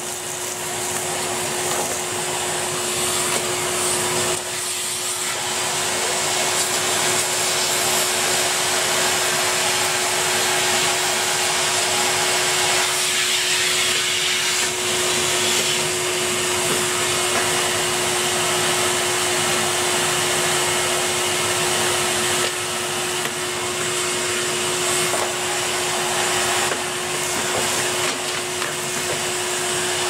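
Henry canister vacuum cleaner running steadily: a constant motor hum with one steady tone under a rush of suction air. The rushing sound changes briefly about four seconds in and again near the middle as the nozzle is moved about.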